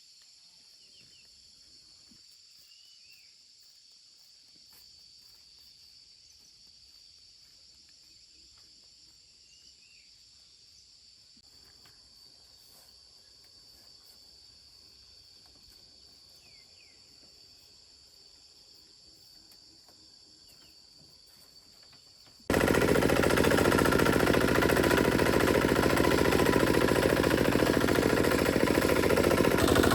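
Insects buzzing steadily with a few faint bird chirps. About 22 seconds in, a small engine cuts in loud, running with a rapid, even chugging.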